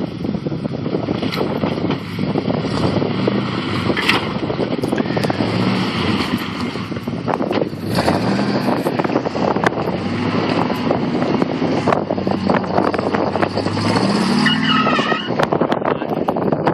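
Lifted full-size Ford Bronco's engine running under load as the truck crawls down a bank and through a muddy ditch, its pitch rising and falling repeatedly as the throttle is worked.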